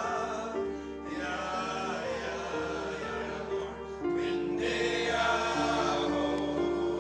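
Background music with voices singing long held notes.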